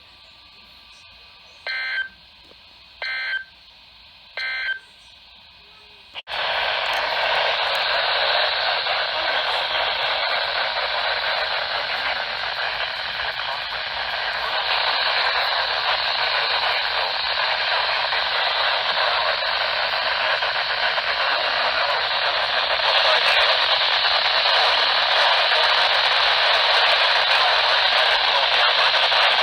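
NOAA Weather Radio EAS end-of-message signal: three short buzzy digital data bursts about a second and a half apart. About six seconds in the broadcast drops out, and the receiver gives a steady, loud static hiss.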